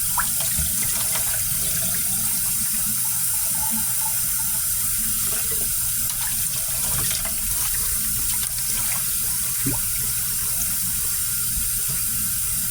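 Kitchen tap running steadily into a sink while raw chicken wings are rinsed under the stream, with a few faint knocks and splashes from handling.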